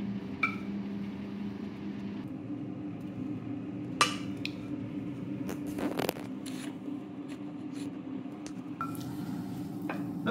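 Kitchen utensils and dishes clink and knock a few times over a steady low hum: a knife against a plate, and a wooden spatula against a steel frying pan near the end.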